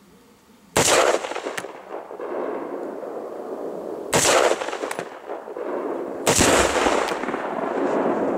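Three loud gunshots a few seconds apart, each followed by a long rolling echo, fired at a binary exploding target, which detonates on one of the later two bangs.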